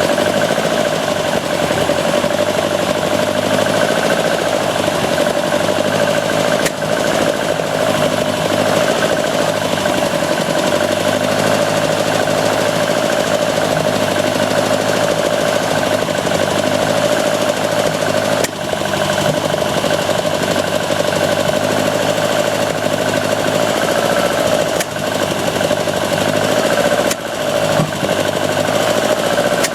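Engine on Weber 44 IDF carburetors running steadily at low throttle, just above idle, with a few sharp pops and coughs breaking through, a cluster of them near the end. The owner traces the popping and coughing to the number 3 carburetor throat.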